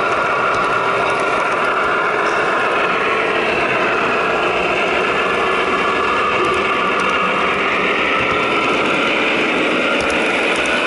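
The onboard sound systems of a pair of HO scale Broadway Limited Imports GE AC6000CW model diesel locomotives, playing the steady running of their sixteen-cylinder turbo diesel engines through the models' small speakers.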